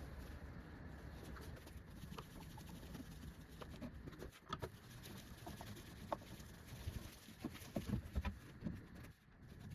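Faint scattered clicks and light knocks, irregular and coming thicker in the second half, over a low steady hum.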